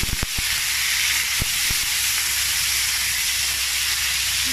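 Pork pieces sizzling steadily as they fry and brown in their own fat in a stainless steel pan. A few short knocks come from the spatula against the pan about the start and again after a second or so.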